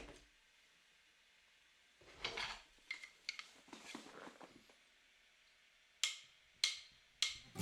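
Faint, scattered clicks and light clatter of small hard objects being handled, with a short busier clatter about two seconds in and a few sharp single clicks near the end.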